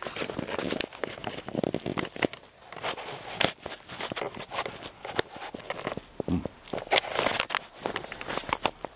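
A person walking, with footsteps and cloth rustling and rubbing against the carried camera's microphone. This gives irregular sharp clicks and scuffs.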